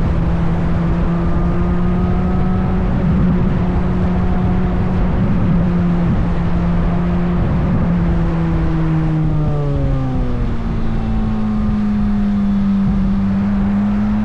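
Chevrolet Corvette C8 Z06's flat-plane-crank LT6 V8 running on a closed throttle down a hill, engine braking. The engine note holds steady, then drops in pitch about nine seconds in and settles lower.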